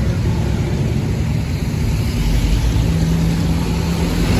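Scania K310 coach's five-cylinder diesel engine running as the bus rolls up at low speed on a wet road, a steady low rumble, with a steady drone coming in about three seconds in.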